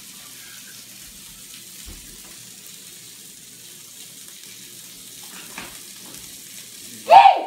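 Meat sizzling on an open electric contact grill, a steady even hiss. A brief loud burst cuts in near the end.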